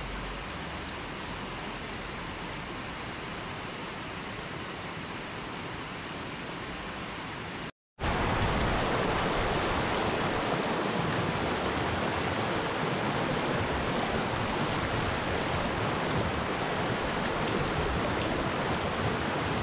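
Rushing water of a mountain river running over rocks, a steady hiss. It cuts out for a moment about eight seconds in and comes back louder.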